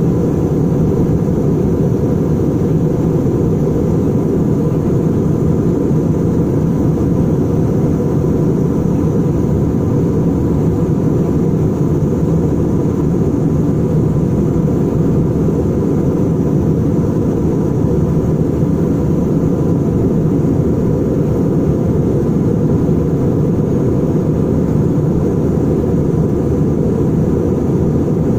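Steady roar of an Airbus A319-100's jet engines and rushing air, heard inside the cabin in flight after take-off. It stays at one level throughout, deep and even.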